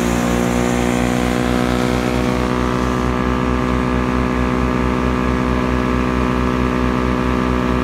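Caravaggi BIO 190T chipper-shredder running at speed off a tractor's PTO, together with the tractor engine: a loud, steady drone with a low throb pulsing several times a second. A higher rushing noise thins out about two and a half seconds in.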